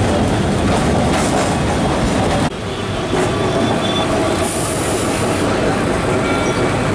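Kolkata electric tram running on its rails, a dense steady rumble and rattle of the car and wheels. About two and a half seconds in the sound cuts abruptly to a slightly quieter run, with a high hiss for about a second near the middle.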